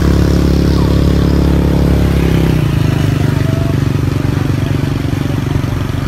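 An engine running steadily close by, with its pitch dropping slightly about two and a half seconds in.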